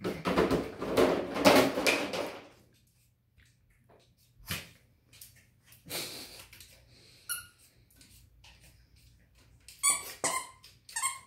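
Two small dogs play-fighting over a plush toy: growling and scuffling for the first two to three seconds, then scattered small knocks, and a few short high squeaks near the end.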